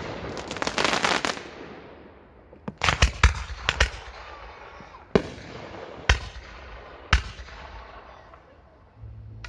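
Fireworks display with mortar-fired shells: a dense crackle in the first second or so, then a series of sharp bangs, about seven, spaced roughly half a second to a second apart.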